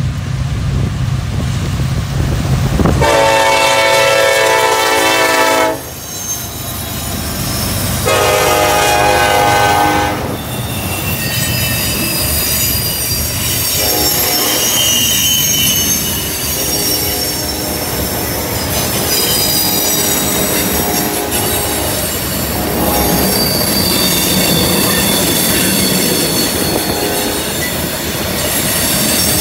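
CN freight train: diesel locomotives rumbling in, then two long horn blasts, the first about three seconds and the second about two. The train of freight cars then rolls past with wheels squealing in high, wavering tones as they take the curve.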